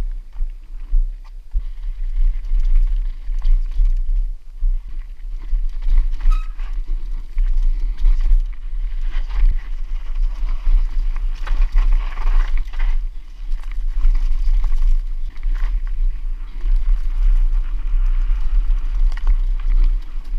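Mountain bike descending a rough trail: tyres on dirt and stones, with the frame and chain rattling in frequent clicks and knocks. A steady wind rumble on the microphone runs underneath.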